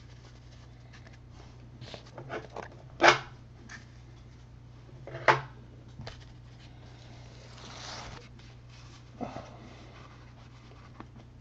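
Trading cards and foil pack wrappers being handled: scattered clicks and rustles, with two short, sharp louder sounds about two seconds apart and a longer rustle a little past the middle.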